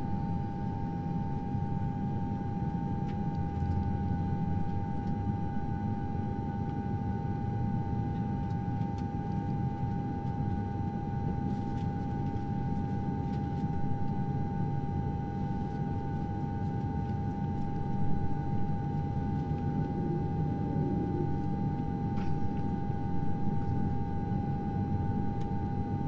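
A steady high hum of two close pitches, held without change, over a low rumbling noise.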